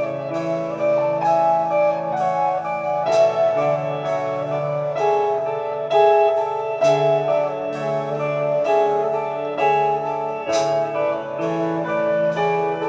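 Instrumental music: plucked notes struck in a steady rhythm over held chords, with no singing.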